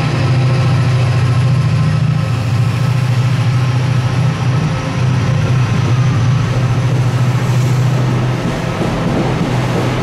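Class 68 diesel locomotive's Caterpillar V16 engine working hard as the train pulls away, a loud steady deep drone, with the coaches rolling past on the rails.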